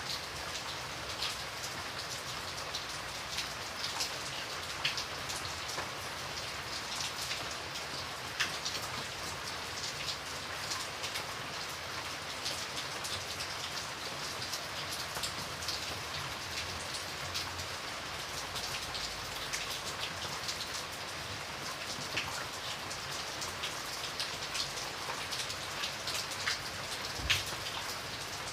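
Steady rain falling, a continuous hiss with many separate drops pattering on a hard surface, a few sharper drip hits standing out.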